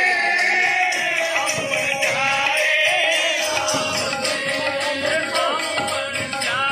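Music with singing over a held tone and steady hand-percussion strokes.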